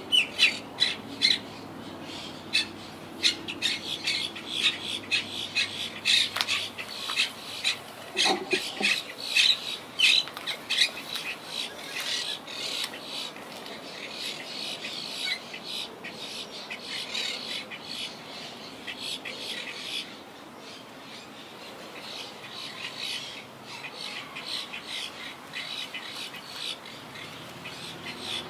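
Wild monk parakeets squawking and chattering as a flock, with many short calls overlapping in quick succession. The calls are loudest and most clipped in the first ten seconds or so, then settle into a softer, steadier chatter. These are ordinary colony calls, not alarm calls.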